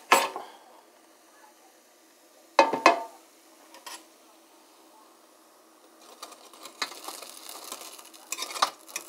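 Two loud clattering knocks of the air fryer's basket being handled, just after the start and about three seconds in. From about six seconds on, a fork scrapes and taps on the breaded fish fillets in a run of small dry, crunchy scratches: the coating is crisp, not soft.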